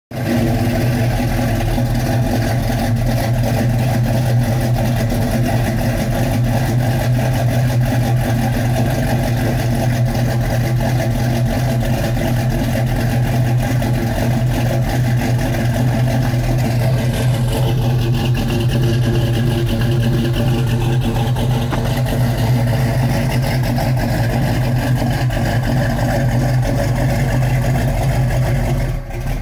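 Plymouth Road Runner's engine idling steadily, heard through its exhaust from behind the car.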